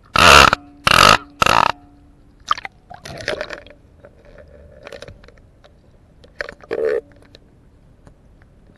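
Fishing line running through fingers as a camera rig is lowered on it, picked up by the rig's own microphone as a run of loud, harsh bursts: three in quick succession in the first two seconds, then several softer ones scattered through the rest.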